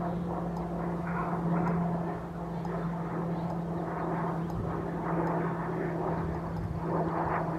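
Steady low mechanical hum holding one constant pitch, over a diffuse rushing background noise.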